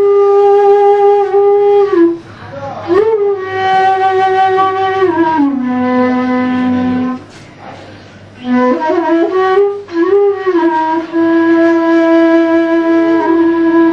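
Slow instrumental melody on a wind instrument, made of long held notes that slide from one pitch to the next, dropping low and quiet for a couple of seconds midway before rising again.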